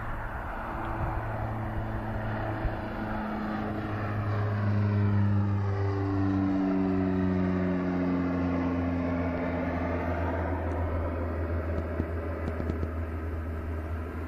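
Twin-engine turboprop airliner climbing out overhead: a steady propeller drone over a broad engine rush, loudest about five seconds in, with the tones dropping in pitch around six seconds in as it passes over and draws away.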